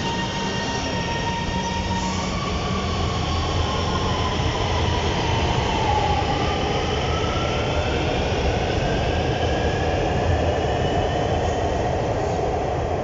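Electric Orange Line metro train pulling out of the station: a steady rumble of wheels on track under an electric motor whine that holds, glides down, then climbs steadily in pitch as the train gathers speed.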